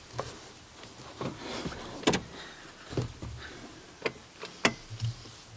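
Clicks and knocks of an aftermarket bucket seat being shifted and adjusted on its mounting rails inside a car, with a sharp knock about two seconds in and another about four and a half seconds in.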